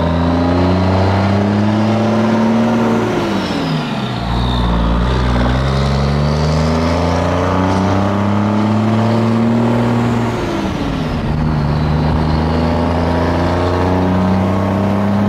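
Heavily modified big-turbo diesel pickup accelerating hard while towing a gooseneck trailer loaded with a skid steer. Its engine note climbs, falls sharply at an upshift about three seconds in, climbs again, and falls at a second upshift near the end. A high whistle rises and falls over it.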